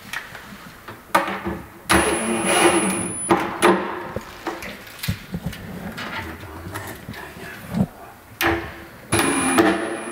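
Cordless drill-driver running in short bursts, driving small screws that fix a metal drawer runner to a chipboard kitchen cabinet: two main runs of about a second and a half each, with a couple of brief blips before them.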